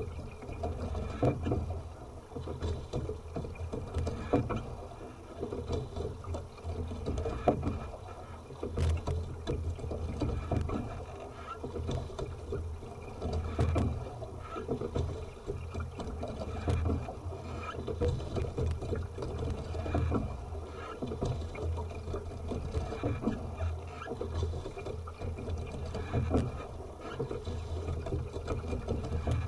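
Single sculling boat being rowed: oars working in their gates, with short knocks, and water running along the hull in an uneven, surging noise.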